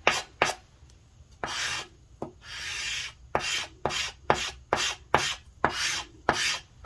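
Charcoal scratching across paper in a run of quick short strokes, about two or three a second, with two longer drawn-out strokes in the first half.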